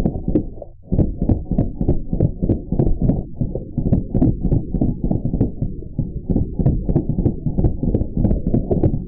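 Slowed-down audio of a Drozd Blackbird BB gun firing rapid bursts, heard as a deep, muffled run of thumps, about four or five a second, after a brief gap about a second in.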